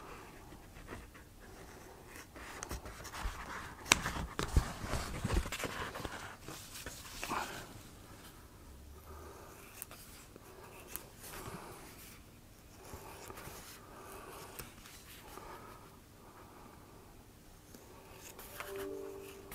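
Scissors cutting a sheet of EVA foam, with scattered snips, scratches and handling rustles, and a cluster of sharper clicks about four to five seconds in.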